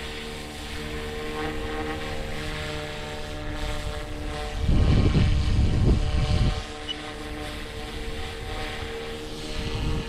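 Electric RC helicopter (Flite Wing 200) hovering and flying overhead: a steady whine of its motor and rotor blades. About five seconds in, wind buffets the microphone with a loud low rumble for about two seconds.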